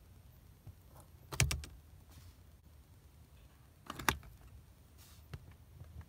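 Chrome rear ashtray lid in a 1980 Lincoln Continental Mark VI's trim panel clicking open with a sharp metallic snap about a second and a half in, then another quick double click at about four seconds as the fittings inside are pressed, and a faint tick shortly after.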